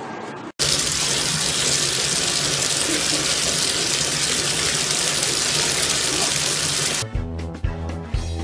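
Water running hard into a bathtub, a loud steady rush that starts abruptly about half a second in and stops near the end. Music with a steady beat takes over after it.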